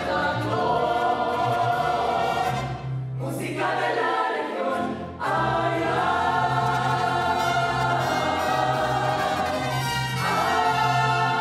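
A mariachi ensemble of several voices singing a sustained melody together over strummed guitars, with a short break about four to five seconds in before the singing picks up again.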